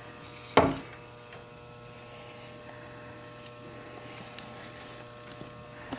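Steady electrical hum, with one sharp knock about half a second in and faint ticks and rustles of paracord being handled.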